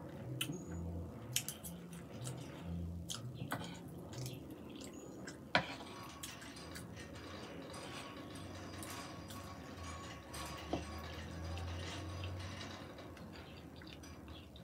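Close-up chewing of chili cheese fries, with a metal fork clicking and scraping as it scoops fries off a wooden board. A sharp click about five and a half seconds in is the loudest.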